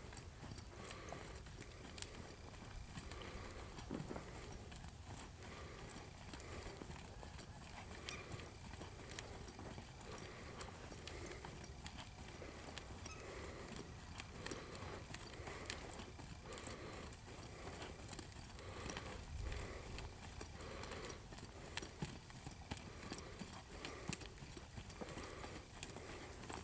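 American Quarter Horse mare's hooves beating in a steady rhythm as she jogs on soft arena dirt, muffled, with faint tack creaks.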